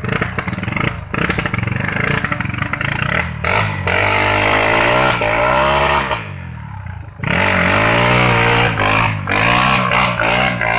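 Motorcycle engine revving hard under load on a steep uphill climb, its pitch rising and falling. The engine note drops away about six seconds in, then picks up loudly again about a second later.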